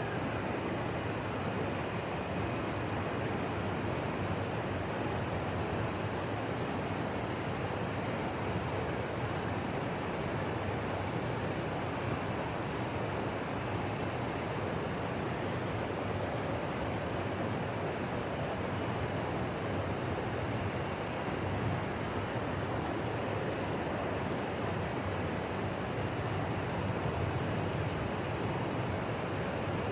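Waterfall rushing: a steady, even noise of falling water with no change in level.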